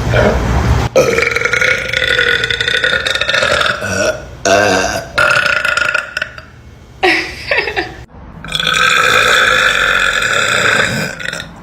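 A woman belching loudly several times in a row: two long drawn-out burps of about three seconds each, with several short ones between.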